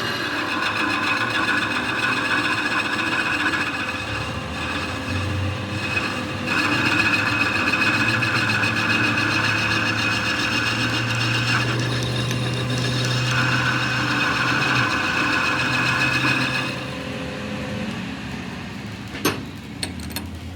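A workshop machine running with a steady whine over a rasping, scraping sound. It stops about 17 seconds in, and a few sharp clicks follow near the end.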